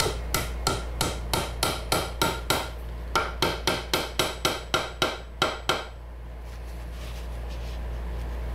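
Small hammer tapping tight-fitting glued hardwood dovetail keys into slots across a mitred box corner: quick light taps, about four a second, in two runs with a short break, stopping about two-thirds of the way through.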